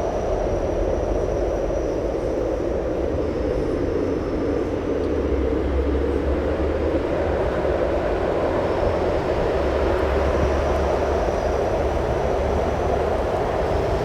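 Strong wind blowing steadily, a rushing roar with a deep rumble underneath and a faint thin whistle that comes and goes.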